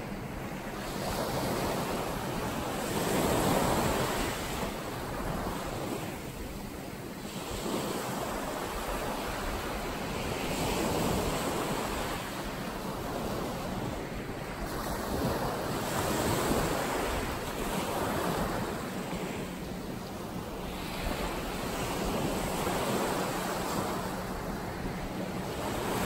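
Ocean surf washing in and rolling, swelling and easing every few seconds.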